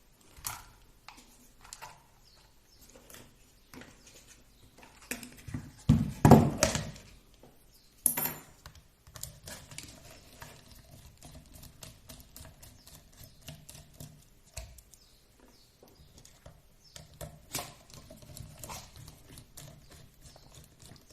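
Small plastic and metal clicks and taps of screws and parts being handled while a small RC car chassis is unscrewed and taken apart. A louder clatter comes about six seconds in, and a faint low hum runs under the second half.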